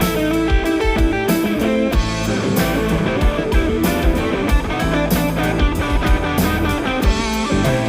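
Live rock band playing an instrumental jam: electric guitar lines over bass and a steady drum-kit beat.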